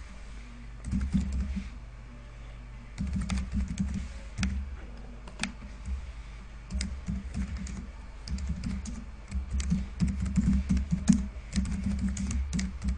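Typing on a computer keyboard: several runs of quick keystrokes, broken by short pauses about two seconds in and again near the middle.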